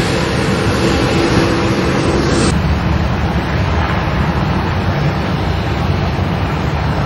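Steady jet engine noise from Delta airliners moving on the ground, a Boeing 737 passing close by. About two and a half seconds in, the sound changes abruptly at an edit and becomes duller.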